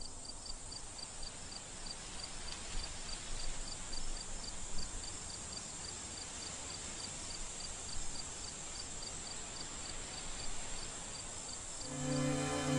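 Cricket chirping steadily, about four short high chirps a second, over a soft hiss; music comes in near the end.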